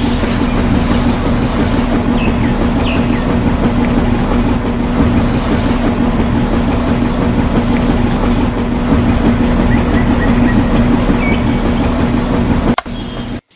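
A small motor running steadily with a constant hum over a rough, rattly rumble, cutting off abruptly near the end. Birds chirp faintly over it.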